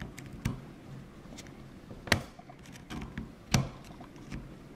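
Sharp metallic clicks and taps as a tool pries at the C-clip retaining a lock cylinder's plug, with three louder snaps about a second and a half apart and fainter ticks between them.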